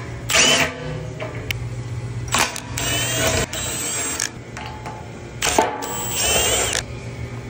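Cordless power tool spinning a socket on an extension to back out the fan cover bolts of an electric motor, run in three short bursts with a whine that rises and falls, over a steady low hum.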